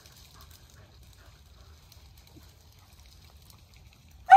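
Quiet stretch with only a faint low rumble, then at the very end a beagle breaks into a loud, drawn-out bay, the cry of a hound opening on a rabbit's track.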